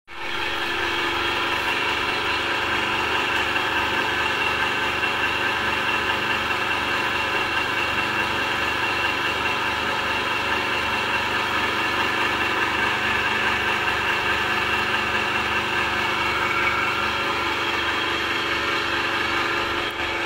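S150 Plus steel feed pellet mill, driven by an electric motor, running steadily under load as feed mash is poured into its hopper and pressed out as pellets, with a steady low pulsing throughout.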